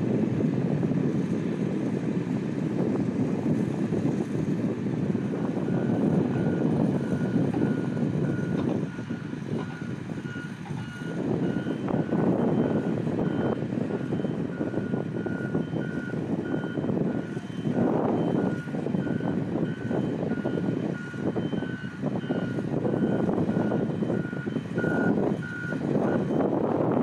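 An electronic alarm beeping steadily, about two short beeps a second, starting about five seconds in and stopping near the end, over a steady low rumble of running machinery and wind.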